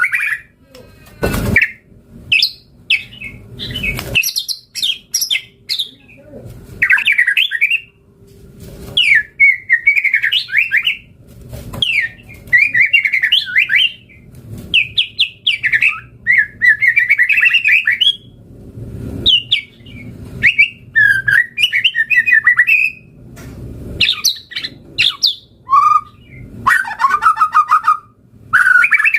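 White-rumped shama (murai batu) singing a long, varied song of rapid whistled phrases and trills, one phrase after another with short gaps. A few harsh, noisy notes come in the first few seconds.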